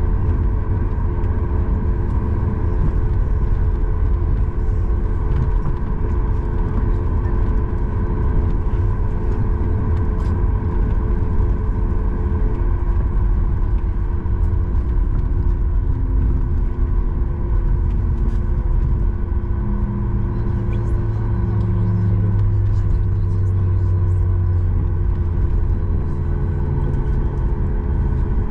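Cabin sound of a Boeing 737 MAX 8 taxiing after landing: a steady low rumble with a constant engine hum from its CFM LEAP-1B engines. About halfway through, a lower tone steps down in pitch.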